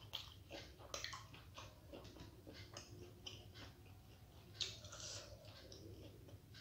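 Faint, close-miked chewing of soft steamed momos: irregular wet mouth smacks and clicks, the loudest about four and a half seconds in.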